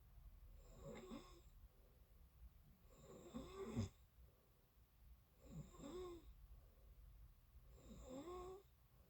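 A person snoring in sleep, faint: four snores about two and a half seconds apart, each with a wavering pitched note, the third the loudest.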